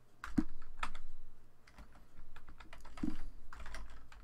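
Typing on a computer keyboard: irregular key clicks, with a couple of heavier thumps among them.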